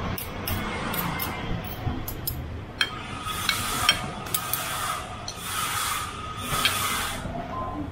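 Street-stall wok cooking: a metal spatula clicking and scraping against the wok, with three hissing bursts of sizzling about a second each.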